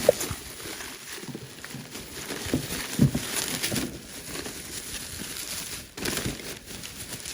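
Packaging being handled as it is unpacked: irregular rustling and crinkling with scattered light knocks.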